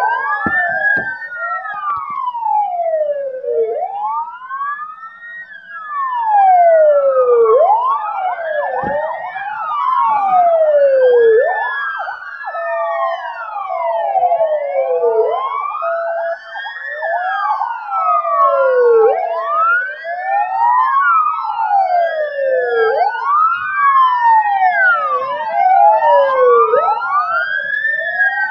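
Several ambulance sirens wailing at once, each rising and falling about once every four seconds and out of step with the others. A pulsing steady tone joins in for a few seconds midway.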